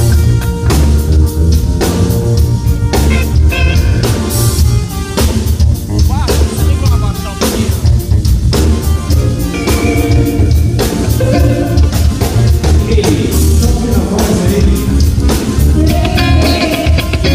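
Live band playing a funk groove: drum kit keeping a steady beat under a heavy bass line, with an electric guitar lead whose notes bend and slide near the end.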